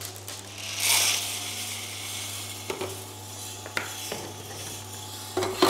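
Hottop KN-8828B-2K+ coffee roaster running with a steady low hum. A hissing rush comes about a second in, then a few sharp metallic clicks and clinks as the roaster is handled just before the beans are loaded.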